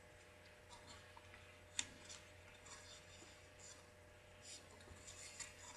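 Paper being folded and creased by hand: faint crinkling and small taps, with one sharper click about two seconds in.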